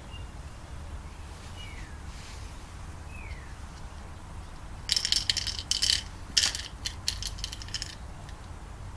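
Small metal parts clinking and rattling in a quick cluster for about three seconds, starting about five seconds in, as a broken microwave is taken apart. Two faint, short, falling high chirps come earlier.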